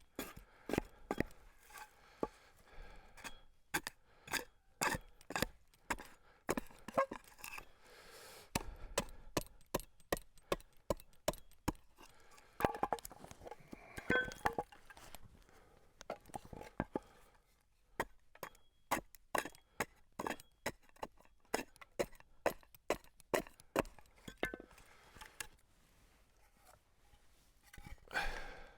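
Repeated sharp knocks of a hand tool striking cedar as shakes are split and trimmed by hand, in runs of about two knocks a second, pausing twice.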